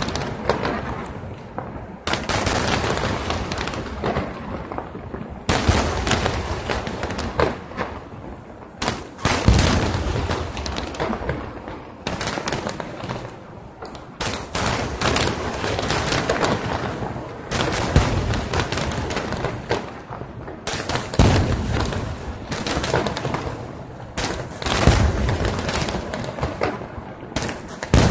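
Aerial firework shells bursting in a rapid, almost continuous barrage of bangs, with louder surges every few seconds.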